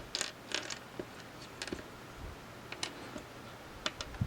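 Small plastic miniature Rubik's Cube pieces clicking against each other and the tabletop as they are sorted through by hand: a quick cluster of light clicks in the first second, then a few scattered single clicks.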